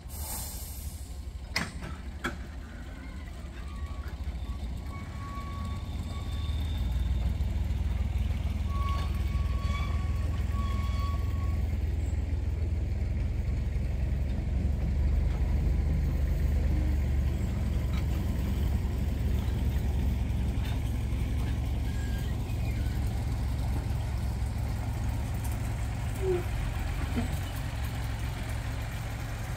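Small narrow-gauge diesel locomotive's engine running with a low, steady drone as it hauls its coaches, growing louder over the first several seconds and then holding steady. A few clicks come early on, and brief high tones sound at about four and ten seconds in.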